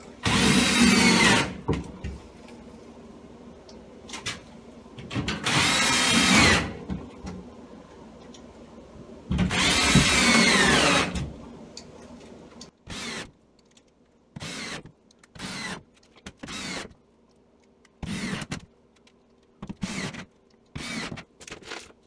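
Cordless drill driving screws through cement board backer into wooden studs. There are three long runs of the motor in the first half, each with its pitch rising and falling, and then a string of short bursts.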